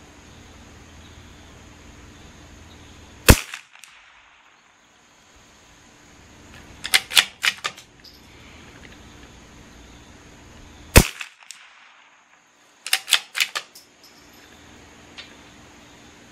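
Two shots from a CZ 457 bolt-action .22 LR rifle, about eight seconds apart. Each is followed a few seconds later by a quick run of four or five metallic clicks as the bolt is worked to chamber the next round.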